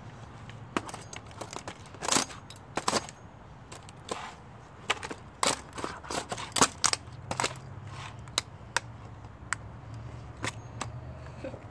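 A claw hammer striking a laptop's plastic keyboard deck again and again: about twenty sharp knocks at an irregular pace, some in quick flurries.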